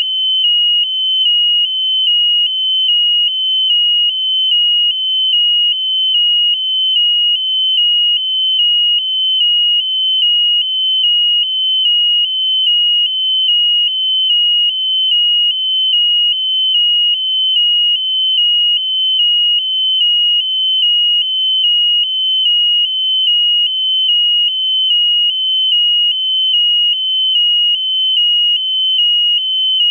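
Electronic alarm buzzer sounding a loud, continuous high-pitched tone that warbles evenly between two close pitches, about twice a second.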